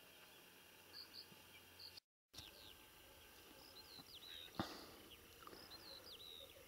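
Near silence of open country, with faint, high, short chirping notes of distant songbirds, more of them after about two seconds in, and one faint tap near the middle.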